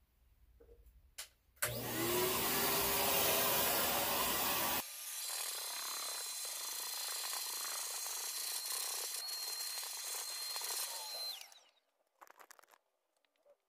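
Vacuum cleaner switched on about a second and a half in, its motor rising as it spins up, then running steadily with a high whine as its nozzle sucks lint off a carpeted car floor mat. It shuts off near the end, the whine dropping away.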